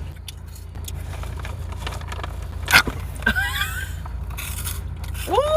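Crunching and rustling while a crunchy corn snack is eaten over a steady low hum, with a sharp crackle nearly three seconds in. Near the end comes a loud, long, rising then held 'mmm' of someone tasting it.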